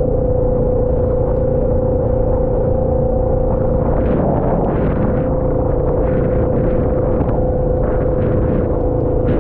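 Vehicle in motion on a rainy ride: a steady low rumble with a constant droning tone, and now and then brief swells of hiss.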